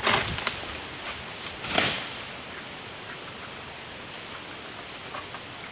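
Two short rustling crashes about two seconds apart, the second louder, as fronds cut from an oil palm with a long-poled egrek sickle come down.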